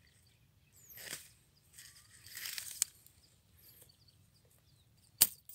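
Dry rice straw rustling as a hand works into a stubble clump, in two short bouts, then one sharp snap near the end.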